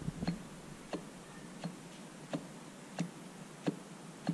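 Shaft in an opened Kohler KT-17 twin's crankcase being slid back and forth, its excess end play letting it knock against its stops. Short metal clicks come about one every two-thirds of a second. The owner measures the end play at a sixteenth of an inch and calls it insane.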